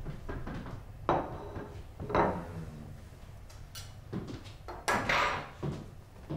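A dinner plate set down on a wooden table, then cutlery and dishes clinking and knocking in a few separate bursts, the loudest about five seconds in, over a low background hum.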